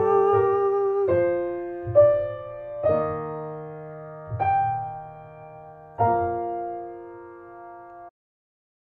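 Closing piano chords ending a slow song: about six chords struck one after another, each dying away. The last chord is held for about two seconds, then cuts off suddenly just after eight seconds in.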